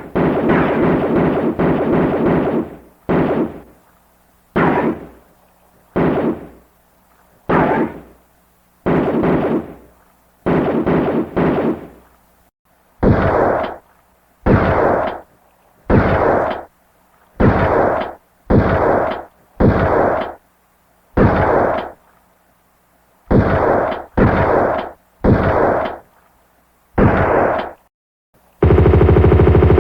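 Gunshot sound effects: a stretch of rapid automatic fire at the start, then single shots about a second and a half apart, a few in quick pairs, each with a short fading tail, and rapid automatic fire starting again near the end.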